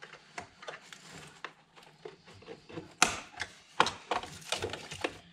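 Sharp plastic clicks and rattles of wiring-harness connectors being released and unplugged from a TIPM power distribution module, with the loudest snaps about three seconds in and again just under a second later.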